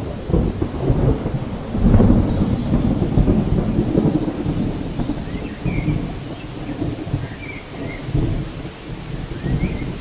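Heavy rain with thunder rumbling, swelling loudest about two seconds in. A few faint bird chirps come through in the second half.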